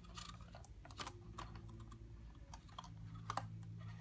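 Light, scattered clicks and taps of fingers handling and pressing a cardstock paper model with clear tape, over a low steady hum.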